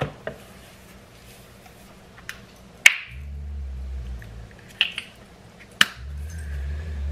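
Sharp plastic clicks of a cosmetic tube's flip-top cap being snapped open and shut several times as the tube is handled. The loudest snaps come about three seconds in and again near six seconds. A low rumble fills two stretches between them.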